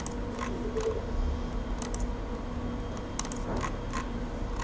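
Scattered sharp clicks of a computer mouse, about eight, irregularly spaced and several in quick pairs, as lines are drawn in SketchUp, over a faint steady electrical hum.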